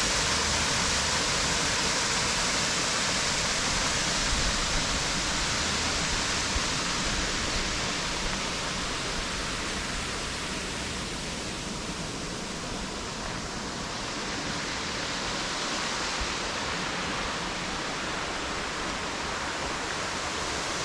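Water falling and splashing steadily at a small waterfall, a continuous rushing hiss that eases slightly midway and then returns.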